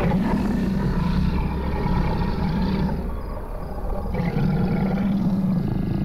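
Deep animal roar of the unseen beast, a creature sound effect, heard twice: a roar of about three seconds that starts suddenly, then a second one starting about four seconds in.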